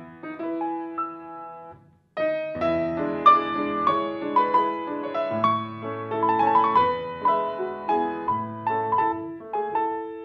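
Grand piano being played solo in classical style. The notes die away and the sound briefly falls almost silent about two seconds in, then the playing resumes with dense, quicker notes.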